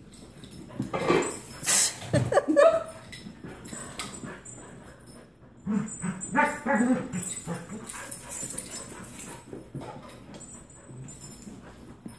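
Two dogs squabbling over rawhide chews: one bout of dog vocalising a second or two in and another about six seconds in.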